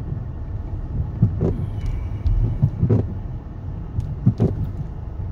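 Car engine and tyre rumble heard from inside the cabin at low speed on a wet street, with short thumps recurring about every second and a half.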